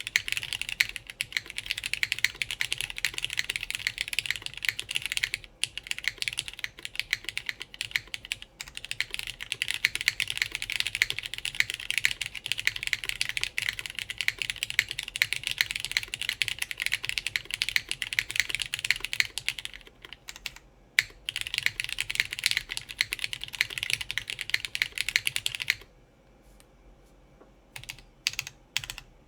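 Fast continuous typing on a mechanical keyboard with lubed linear Cherry MX Black switches and GMK keycaps, mounted on a plateless FR4 PCB. A few brief pauses break the flow, then near the end the typing stops for about two seconds before a few single key presses.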